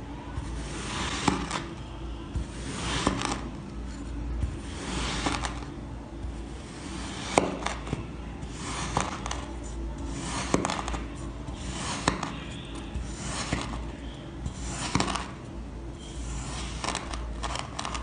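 Knife slicing through blocks of kinetic sand, about one cut a second: each a short crumbly swish, often ending in a sharp tap as the blade meets the board.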